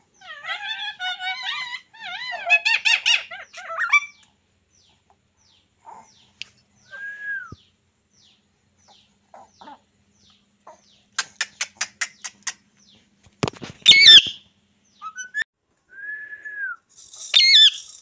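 Rose-ringed parakeets calling: a burst of warbling chatter with wavering pitch, then short arched whistles, a quick run of clicks, and two loud, shrill screeches, the first the loudest.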